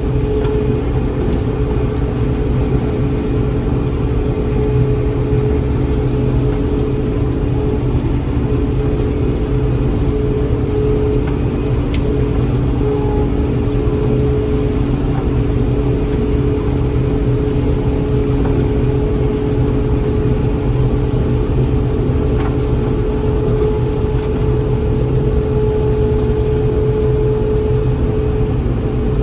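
John Deere 4400 combine running steadily while harvesting corn: an even engine and machinery drone with a steady whine over it.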